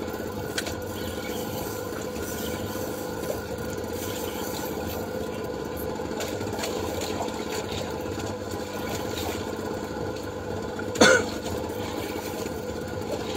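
A steady engine hum runs throughout, with a short cough-like sound about eleven seconds in.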